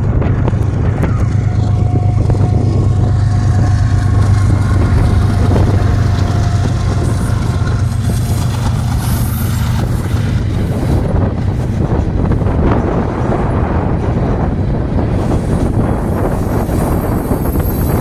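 Freight train passing: diesel locomotives go by with a deep engine rumble and a steady whine. About ten seconds in they give way to ballast hopper cars rolling past with wheel rumble and clicking over the rail. Wind buffets the microphone.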